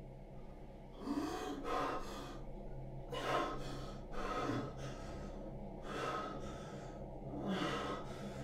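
A man gasping and breathing heavily with his head over a toilet bowl, about one ragged breath a second, as after being sick.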